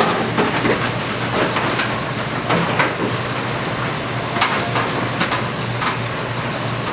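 Constant low hum and room noise, broken by scattered sharp knocks and clacks about once every half second to a second, as a room full of seated football players shifts about.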